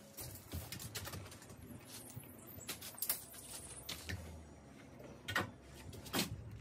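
Scattered light knocks and clicks of softwood door-lining timbers being handled and set in place on trestles, with a sharper knock about five and a half seconds in and another near the end, over a low, quiet background.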